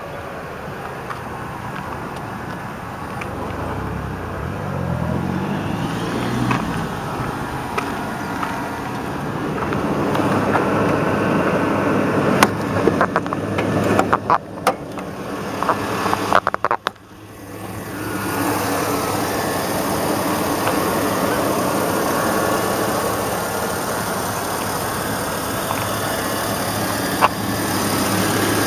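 2002 Chevy Avalanche's 5.3-litre V8 engine running, its pitch sweeping up and down in the first few seconds. A few sharp clicks and knocks come about halfway through.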